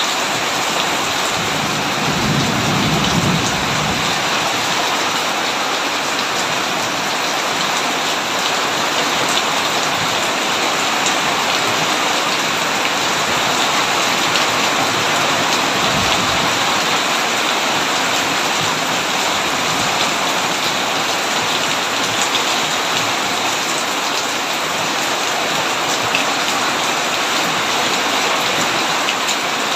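Heavy rain pouring steadily onto a tin roof, with a brief low rumble of thunder about two seconds in.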